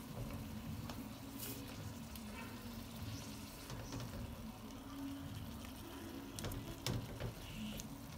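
Thin beef slices sizzling quietly in butter and oil in a stainless steel frying pan, with a few light clicks as silicone-tipped tongs turn the meat against the pan.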